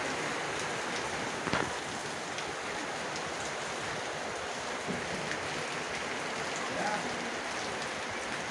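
Steady rain falling, an even hiss of water, with one sharp knock about a second and a half in.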